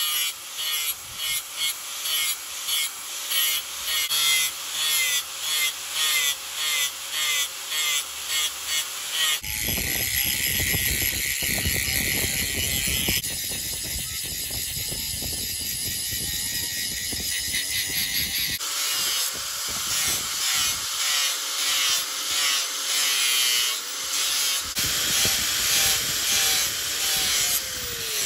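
Angle grinder with an abrasive disc grinding a steel knife blade made from bearing steel, pressed on in repeated passes at about two a second. In the middle the grinding runs steadily, without the pulsing, then the rhythmic passes return.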